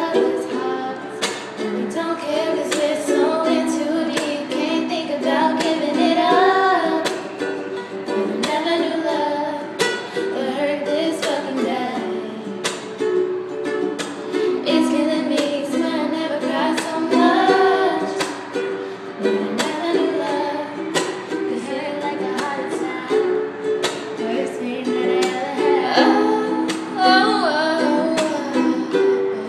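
Female voices singing a pop song over a strummed acoustic string instrument, with the small-room echo of a bathroom.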